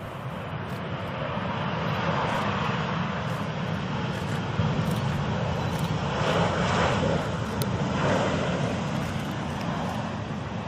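Jet airliner passing low on landing approach: a rushing engine noise that swells over the first couple of seconds, peaks in the middle and slowly fades.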